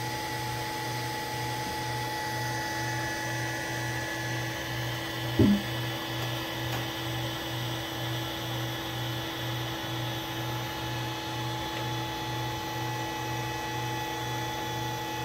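Allen-Bradley MPL-B330P servo motor running on its drive in a test run after repair: a steady whine of several fixed tones over a low hum that pulses about twice a second. A brief thump about five seconds in.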